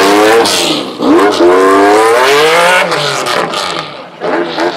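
Lamborghini Diablo GT's V12 accelerating hard away, its pitch rising, dropping back briefly about a second in, then climbing again before falling away and fading as the car pulls off.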